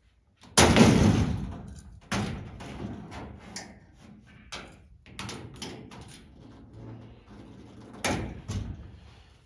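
Plastic rocker panel being shifted and knocked against the race car's body, with a loud bang about half a second in, a second knock near two seconds, smaller knocks and rustling between, and another bang near the end.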